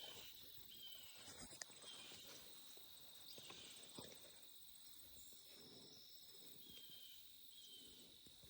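Faint, steady high-pitched trilling of insects such as crickets, with a few soft clicks and rustles scattered through it.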